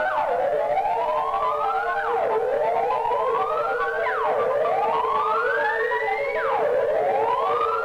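Electronic music: a pitch glides slowly upward for about two seconds and then drops sharply back down, over and over, above a steady held low tone, with short bleeping notes scattered between.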